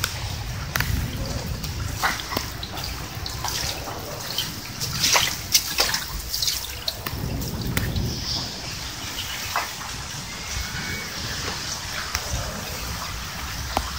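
Heavy rain on a wet concrete slab and bricks, with water trickling and dripping and scattered sharp drop splashes, a flurry of them about five seconds in.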